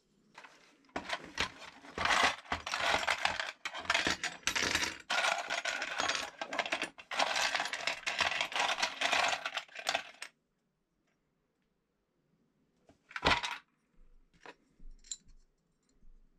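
Small metal parts clinking and rattling on a hard surface, for about nine seconds of busy clatter that stops suddenly. A single sharp metallic click follows a few seconds later, with a few fainter ones after it.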